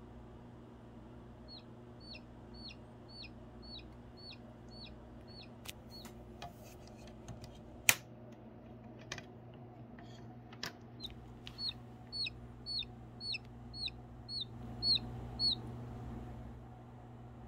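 Baby chick peeping: short, high peeps that slide downward, about two a second, in two runs with a gap between. A few sharp clicks fall in the gap, one of them loud.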